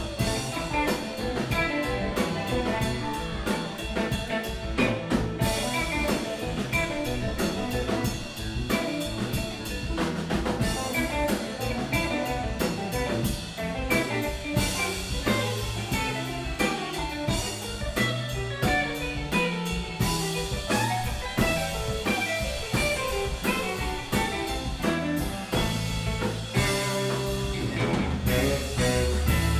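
Live band playing an instrumental passage on drum kit, electric guitars, bass guitar and keyboards, heard from within the audience.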